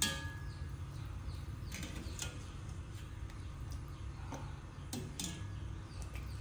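Stainless wire skimmer knocking against a stainless steel pot and bowl while blanched green beans are scooped out and stirred into ice water: a handful of light, scattered clinks over a low steady hum.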